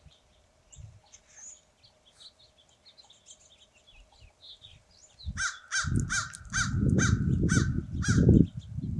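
Small birds chirping faintly, then a corvid gives a quick run of about eight harsh, downward-slurred caws over some three seconds, starting a little past the middle. A low buffeting rumble comes in with the caws and is the loudest thing heard.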